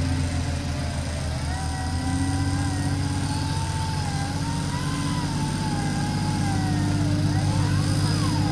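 Electric winch on a 4x4 whining as it hauls the vehicle forward through deep mud, its pitch wavering up and down with the load, over the steady low running of the vehicle's engine.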